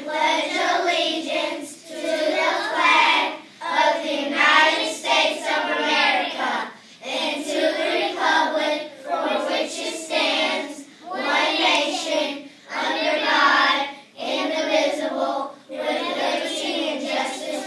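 A class of young children reciting the Pledge of Allegiance together in unison, phrase by phrase with short pauses between phrases.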